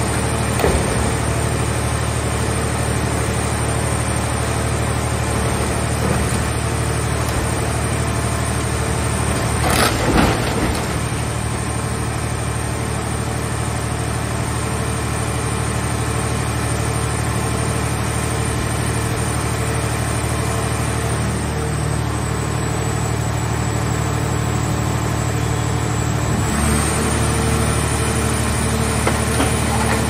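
Scrap car baler's hydraulic power unit running steadily under load while the press works a car body, with a sudden loud crunch of sheet metal about ten seconds in. Near the end the machine's tone shifts and grows slightly louder as the press lid swings down.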